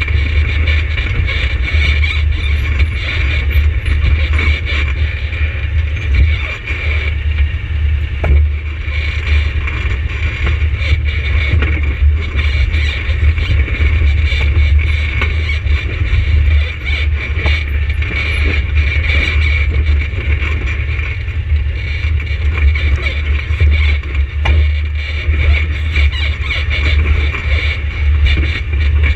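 ATV engine running steadily close to the microphone, a constant low drone with rattles over it.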